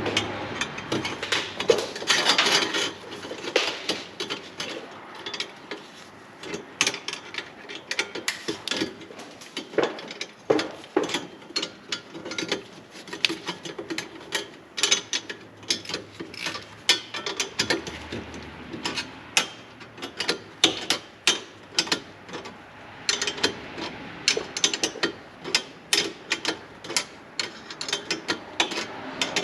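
Hand ratchet wrench clicking in irregular runs as exhaust bolts and clamps are turned down.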